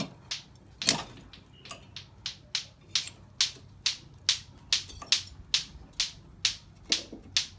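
Ratchet wrench clicking in short, even strokes, about two or three a second, as the nuts holding a Vespa PX 150's exhaust are undone.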